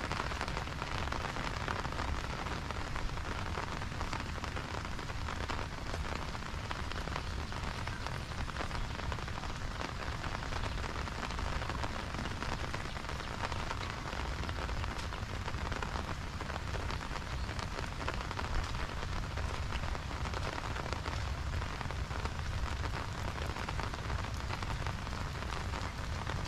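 Steady rain falling: an even hiss of many drops that holds at the same level throughout.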